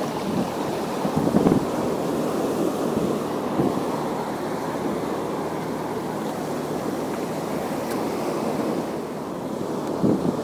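Steady rush of waves and wind, with wind buffeting the microphone.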